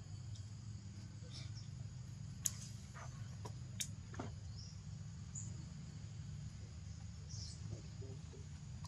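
Outdoor ambience of steadily chirring insects over a low rumble. Two sharp clicks come about two and a half and four seconds in, and a few short high chirps and calls follow.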